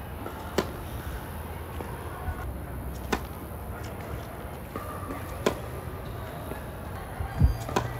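Tennis racket striking the ball on a run of serves: four sharp pops about two and a half seconds apart, over a steady low rumble.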